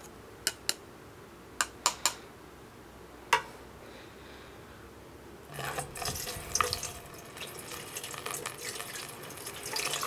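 Water poured from a plastic cup through a funnel into a humidifier's water tank, splashing steadily from about five and a half seconds in. Before that, a few sharp clicks.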